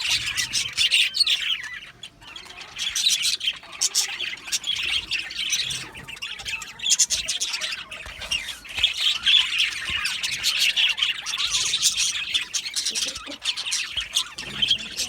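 A flock of budgerigars chirping, warbling and squawking together in many overlapping calls, with a brief lull about two seconds in.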